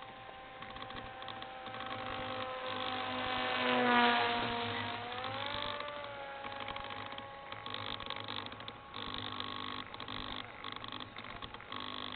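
Electric motor and propeller of a model aircraft whining as it flies past. It is loudest about four seconds in, where its pitch drops, then rises again and fades. Fabric rustles against the microphone.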